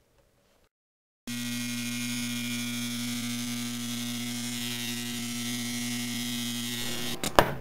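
Mains-powered electromagnet coil humming steadily once it is switched on at a power strip, starting about a second in. The hum cuts off near the end with a few sharp clicks.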